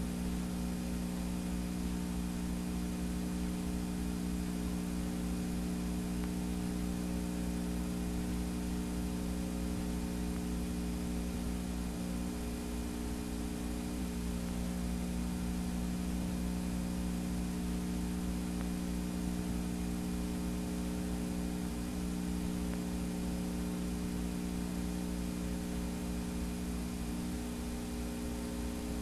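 Steady electrical hum with even hiss from the playback of blank videotape, with no recorded program on it.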